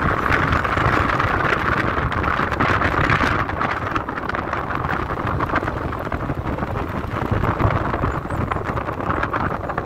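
Wind rushing and buffeting against the microphone of a phone held at a moving car's open window, over the steady road noise of the car driving.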